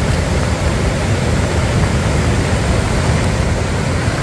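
Fast-flowing floodwater rushing past, a steady loud noise heavy in the low end.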